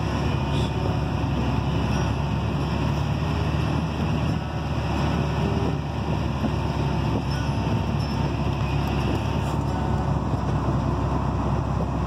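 Steady drone of farm machinery heard from inside a tractor cab: the tractor's engine and a John Deere combine running alongside as it augers wheat into the grain cart.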